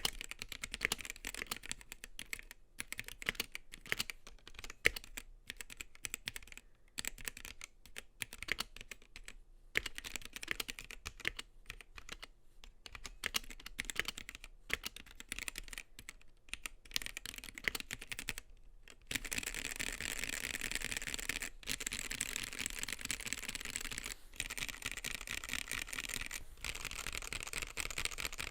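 Typing on a Gamakay K77 mechanical keyboard with Gateron Black linear switches and ABS doubleshot keycaps: irregular key clacks with short pauses, turning into fast, continuous typing about two-thirds of the way through.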